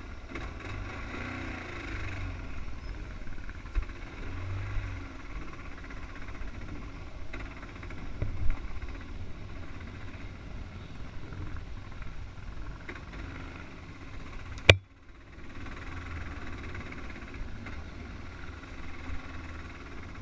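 Dirt bike engine running at low revs while riding a bumpy forest trail, with a few knocks from the terrain. About three quarters of the way through there is one sharp click and a brief drop-out before the engine and trail noise carry on.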